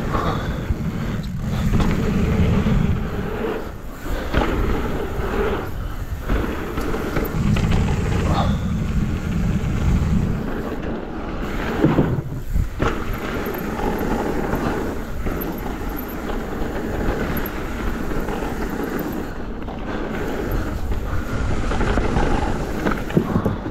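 Downhill mountain bike running fast down a dirt trail on VeeTire Snap WCE tyres: a steady rush of wind and tyre noise, louder in stretches, with scattered sharp knocks and rattles from the bike over bumps.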